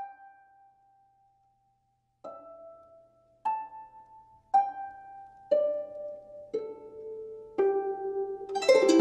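Slow, harp-like plucked-string melody: seven single notes, each ringing out and fading, the line mostly stepping downward. Near the end, fuller, lower notes join and the music thickens.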